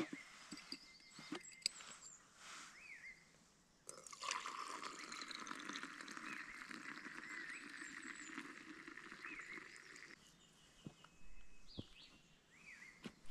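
Milky tea poured in a steady stream from a steel pan into a glass jug, starting about four seconds in and stopping about six seconds later. A small bird chirps a few times.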